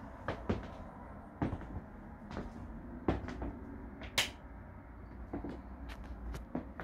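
Irregular light knocks and clicks, the loudest about four seconds in, over a low steady rumble: the footsteps and handling noise of someone walking through the room with a handheld camera.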